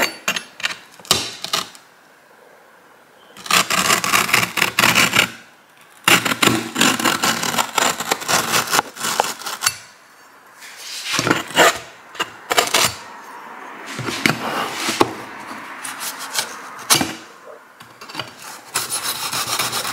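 Cardboard shipping box being handled and turned over: repeated scraping and rubbing of cardboard in bursts of one to four seconds with short pauses between, and a few sharp knocks in the first couple of seconds.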